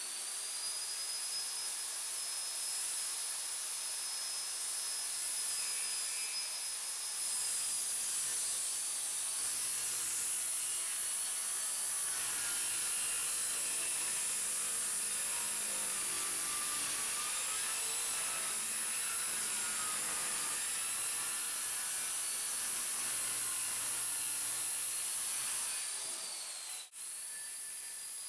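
Corded circular saw cutting lengthwise along a curved line through pine boards, running steadily under load with a high motor whine. It stops briefly near the end, then runs again for a couple of seconds.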